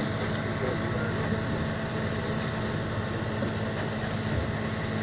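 A fishing boat's engine running with a steady low hum, with a few light knocks of gear on deck.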